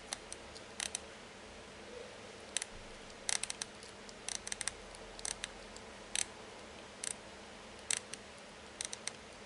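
About fifteen small, sharp clicks at irregular intervals, some single and some in quick runs, from working the control of a gm328 transistor tester while stepping through its frequency generator's preset frequencies.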